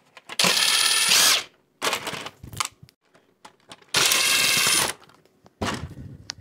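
Cordless electric screwdriver running in two bursts of about a second each, backing screws out of an inkjet print head carriage; the first whine rises in pitch near its end. Small clicks and rattles fall between the bursts.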